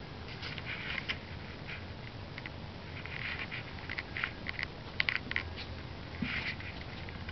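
Fabric cat tunnel rustling and crinkling as a cat shifts and turns around inside it, in a few short bursts with sharp crackles.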